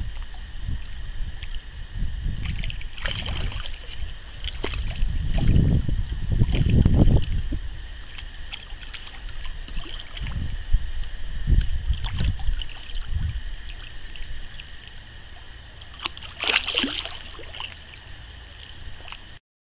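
A hooked carp splashing and swirling at the surface as it is played in to the bank and drawn into a landing net, with irregular low rumbling throughout and a sharper splash near the end. The sound cuts off abruptly just before the end.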